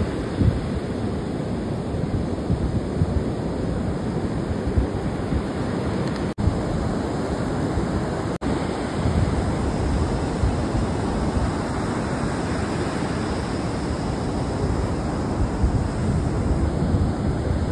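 Rough sea surf washing onto the beach with wind buffeting the microphone, a steady rushing noise that cuts out for an instant twice around the middle.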